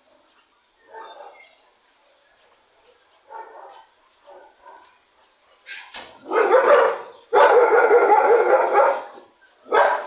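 Dogs barking: a few faint short yips and whimpers at first, then loud, continuous barking for about three seconds from just past the middle, with a short burst again near the end.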